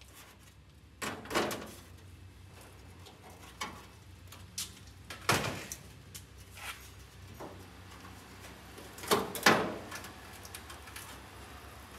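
Loose sheet-metal fender panel being offered up to a Porsche 914's rear quarter and shifted about: scattered sharp knocks and clacks of metal on metal, the loudest about five seconds in and a close pair near the end.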